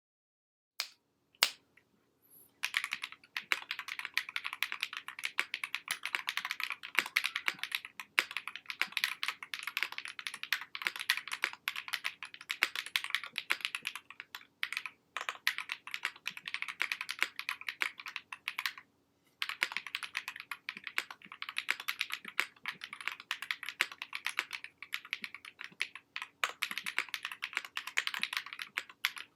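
Fast continuous typing on a Wind X65 mechanical keyboard with Tecsee Carrot linear switches and VOO cherry-profile keycaps: dense, rapid key clacks after a couple of single key presses at the start, with a brief pause a little past the middle.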